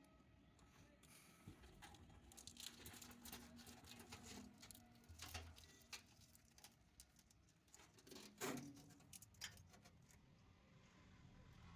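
Faint, scattered clicks and rustles of hands handling parts during wiring work, with a slightly louder knock about eight and a half seconds in.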